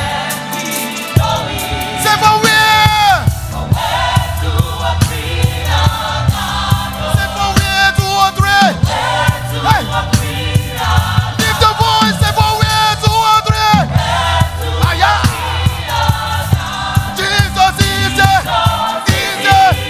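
Gospel choir singing with band accompaniment: a steady bass line and drums under the voices.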